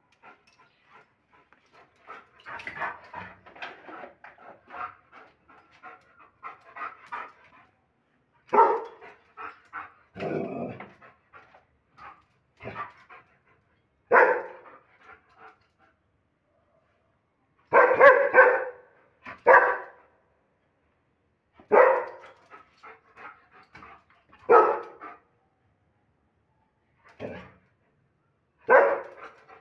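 German Shepherd dog panting rapidly for the first few seconds, then barking: about ten loud barks a couple of seconds apart, with a quick run of barks near the middle.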